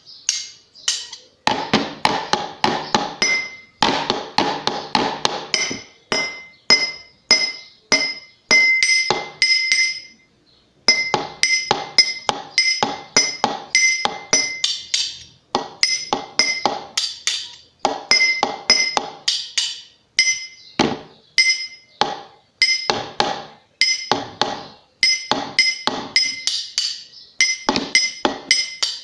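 Improvised rhythmic percussion on kitchen utensils: a metal spoon and fork tapping a drinking glass and other kitchen objects, several strikes a second. Many strikes leave a clear, high glass ring, and the playing breaks off briefly about ten seconds in.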